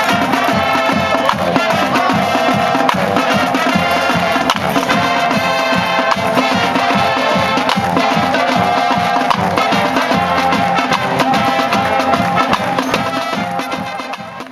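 Music with a brisk percussive beat, fading out at the end.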